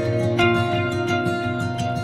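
Instrumental background music of plucked acoustic guitar notes.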